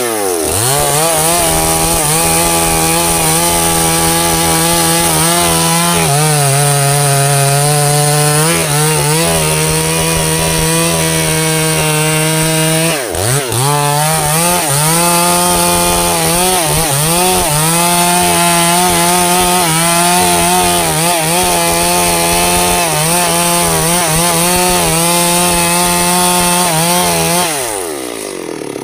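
Stihl MS 382 two-stroke chainsaw revving up and running at full throttle as it cuts into the trunk of a sengon tree. The engine note dips briefly about halfway through, then comes back up, and drops toward idle near the end.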